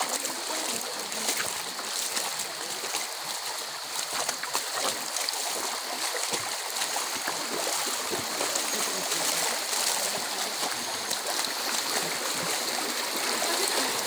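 Shallow stream rushing over rocks, a steady rush of water with a few small splashes.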